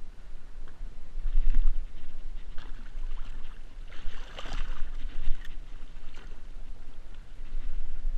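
A bluefish released over a boat's side splashes into the water about four to five seconds in, among small knocks and water sounds at the hull, over a constant low rumble on the microphone.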